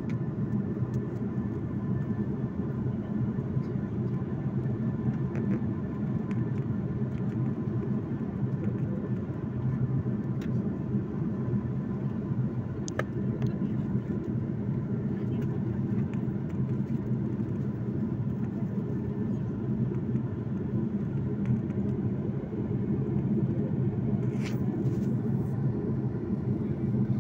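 Steady low roar of a jet airliner in cruise heard inside the cabin: engine and airflow noise with faint steady tones above it. A single sharp click about halfway through.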